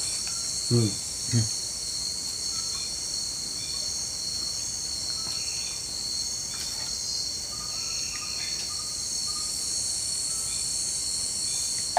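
Night chorus of crickets and other insects: a steady, high-pitched trilling with faint short calls scattered through it. Two brief vocal sounds come about a second in.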